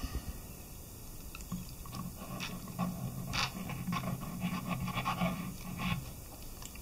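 Plastic snuffer bottle sucking up wet black sand and gold from a plastic gold pan: a run of small scrapes and clicks as the nozzle tip drags over the pan and grit, with a low steady sucking sound of water and air drawn into the bottle from about a second and a half in to about six seconds.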